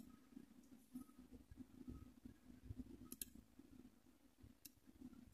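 Near silence: a faint steady low hum with a few faint computer mouse clicks, around three and nearly five seconds in.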